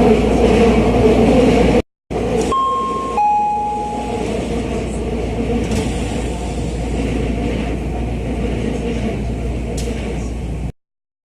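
Y500 series train door chime: two clean descending tones, the second held longer, over the steady hum of the carriage interior. A short break in the sound just before the chime.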